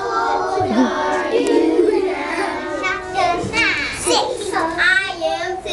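Young children's voices singing, with held notes in the first couple of seconds, then higher, wavering children's voices.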